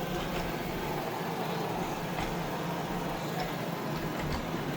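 Shark robot vacuum running: a steady motor and brush hum with a few faint ticks.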